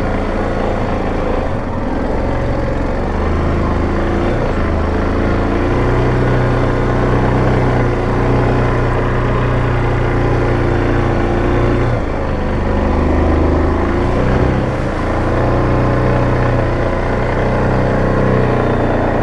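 Yamaha Grizzly 700 ATV's single-cylinder engine running while riding a trail, its note shifting up and down a few times with the throttle.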